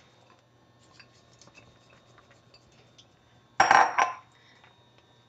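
Metal cookware clattering: a utensil or lid knocks against a pot, one short loud clank with a ringing note about three and a half seconds in, after a few faint small clicks.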